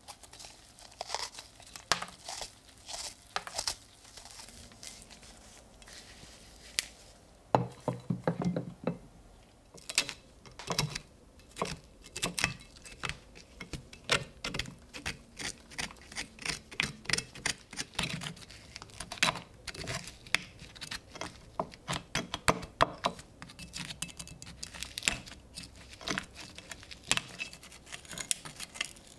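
Rotted wood of the old handle being broken away and picked out of the rusted eye of an Austro-Hungarian 1896 military pickaxe head with a metal pick: irregular crackling, snapping and scratching of crumbly wood and metal scraping on rust, sparser for a few seconds early on before it picks up again.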